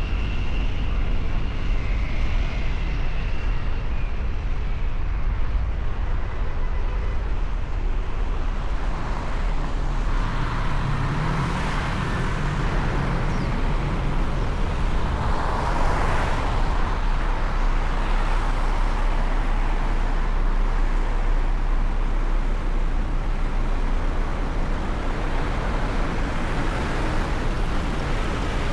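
Road traffic: a steady low rumble of vehicles, swelling twice in the middle as vehicles pass close.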